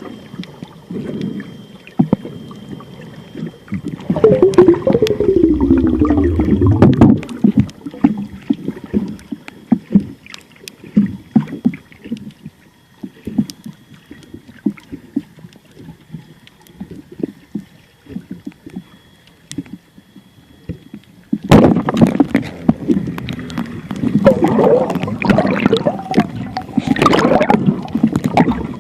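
Water rushing and bubbling around the microphone in two loud stretches, about four seconds in and again from about twenty-one seconds, with scattered clicks and quieter sloshing between.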